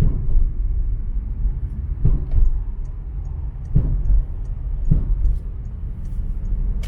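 Steady low rumble like a vehicle in motion, with a few short knocks.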